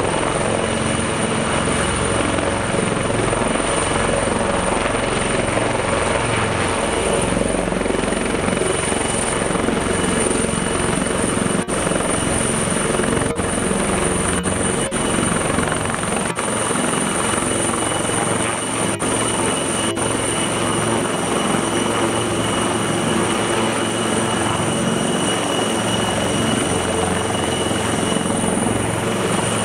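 Westland Lynx AH9A military helicopter hovering low and moving slowly past at close range: the twin turboshaft engines give a steady high-pitched whine over the loud, dense noise of the main and tail rotors.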